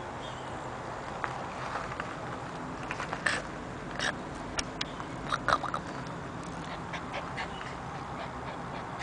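Black chow puppy making scattered short grunts and squeaks while she plays, mixed with sharp clicks. They come thickest in the middle few seconds.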